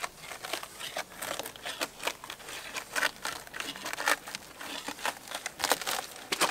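Bark being pried and peeled away from the wood of a felled log along a scored line: irregular crackling and tearing, with a few louder rips.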